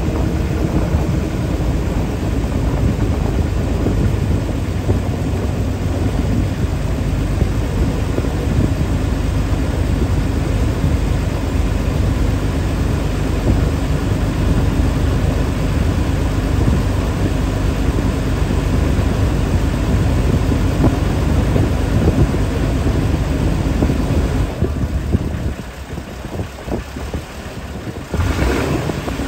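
Boat engine running steadily while under way, with a low rumble of wind on the microphone. The noise drops off for a few seconds near the end, then picks up again.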